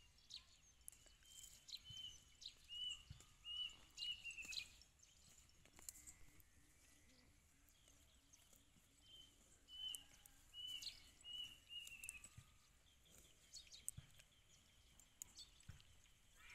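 Faint rural quiet in which a small bird sings a short phrase of high chirps ending in a falling trill, twice. Scattered crisp clicks and rips come from the cow tearing and chewing grass close by.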